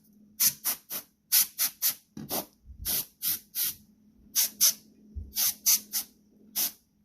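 Compressed air blown in many short, sharp hissing puffs, about two or three a second, to blow dust out of a laptop keyboard.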